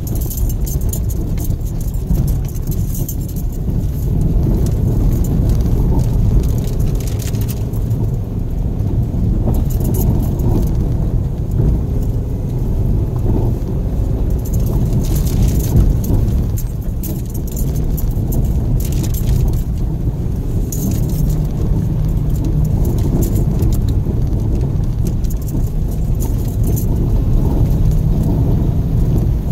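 In-cabin road noise of a 2014 Subaru XV Crosstrek driving on a rough dirt road: a steady low rumble of tyres and engine, with scattered clicks and rattles throughout.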